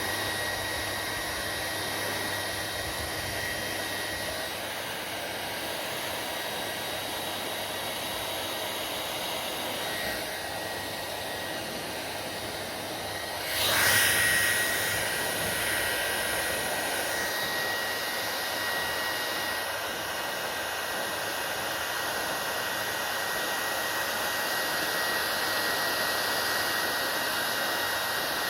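Hair dryer blowing steadily, a rushing air noise with a thin high motor whine. About halfway through it briefly gets louder, then settles a little louder than before.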